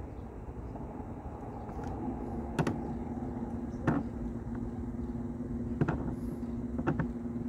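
Electric trolling motor humming steadily, coming on about two seconds in, over a low rumble of wind and water, with a handful of sharp knocks.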